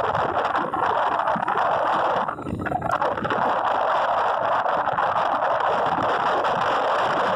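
Steady rush of wind and road noise from riding at speed, with no engine note, dropping away briefly about two and a half seconds in.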